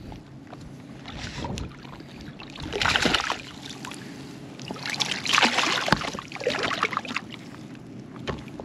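Hooked speckled trout splashing at the water's surface as it is reeled in close: one burst of splashing about three seconds in and a longer one a couple of seconds later.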